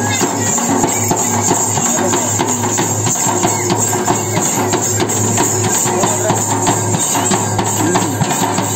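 Folk frame drums beaten in a fast, steady, driving rhythm, with a jingling, tambourine-like rattle over the strokes.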